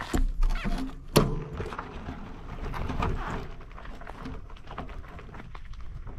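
Bicycle rolling over a rough dirt trail: irregular rattling and clicking, with a sharp knock about a second in.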